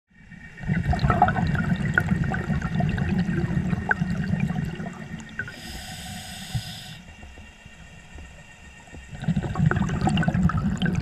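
Scuba diver breathing underwater through a regulator: a long bubbling exhale with popping bubbles, a short hiss of inhaling partway through, then another bubbling exhale near the end.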